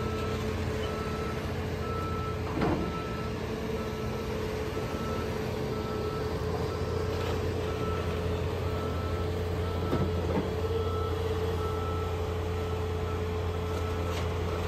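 Diesel engines of heavy demolition machines, an excavator and a compact track loader, running steadily, with a backup alarm beeping about once a second. Two short crunches, about two and a half seconds in and near ten seconds in, come as the excavator bucket breaks into the building's roof.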